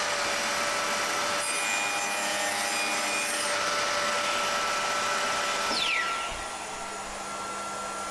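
Table saw running with a steady whine, its blade tilted to 45°, cutting a shallow test groove into a wood strip from about one and a half to three and a half seconds in. The sound drops a little about six seconds in.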